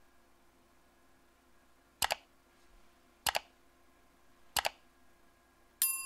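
Computer mouse click sound effects: three quick double clicks about a second and a quarter apart. Near the end comes a bright notification-bell ding that rings on as it fades.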